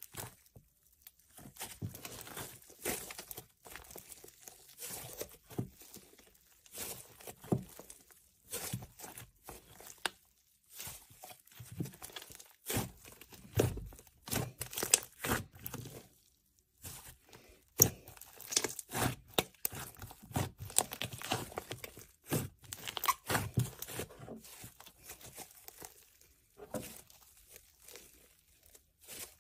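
Hands kneading, squeezing and folding a thick pink slime, giving a run of irregular sticky crackles and small pops, with a couple of short pauses.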